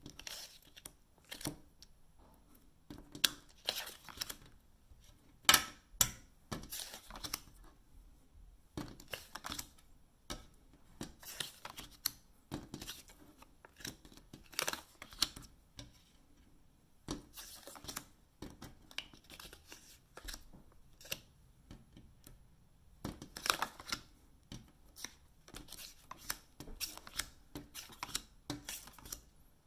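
Playing cards being handled on a desk: slid along, flipped over and set down, making an irregular run of short scrapes, flicks and taps with brief pauses between moves.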